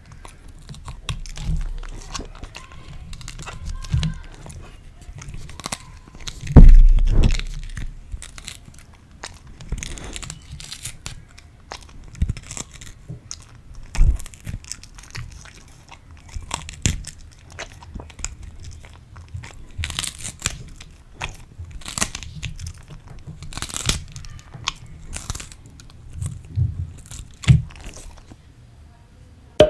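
Samoyed biting and chewing crisp sugar pea pods close to a microphone: irregular crunches and chomps, with one loud low thump about six and a half seconds in.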